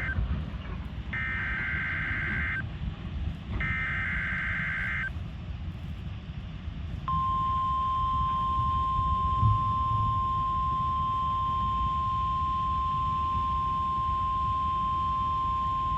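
NOAA Weather Radio SAME alert header: the tail of one digital data burst, then two more identical warbling bursts, each about a second and a half long and a second apart. After a pause of about two seconds comes the steady 1050 Hz warning alarm tone, held for about nine seconds. Together they open a Required Weekly Test.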